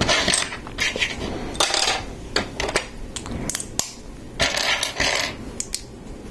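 Loose plastic Lego pieces rattling as hands sort through them, with a scatter of sharp clicks of plastic on plastic.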